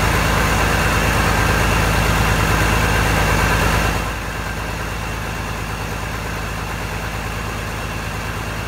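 International Harvester 986 tractor's turbocharged six-cylinder diesel idling steadily; the sound drops somewhat quieter about four seconds in.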